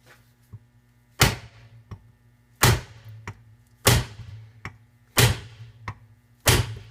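Hammer striking a three-jaw puller fitted to a stuck part of a 70cc quad engine, to shock the part loose: five sharp blows about 1.3 seconds apart, each with a short metallic ring.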